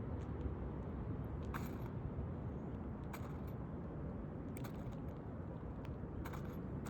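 Light scrapes and clicks of an asphalt shingle being worked into place on a roof, four short ones over the span, over a steady low rumble.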